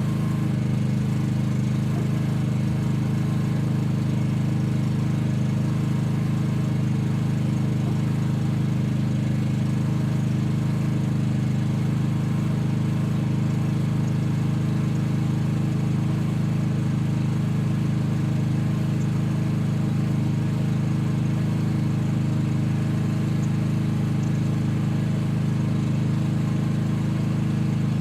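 Mini excavator's engine running at a steady speed, an even hum with no change in pitch or level.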